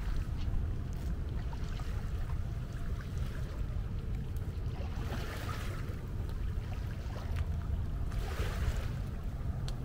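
Wind buffeting the microphone over a steady low rumble, with two short swells of hiss about five and eight and a half seconds in.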